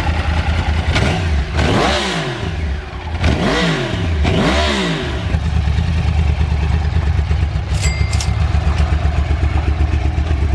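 2014 Yamaha R1's crossplane inline-four engine idling with an even pulse, blipped three times in the first five seconds, each rev rising and falling back to idle.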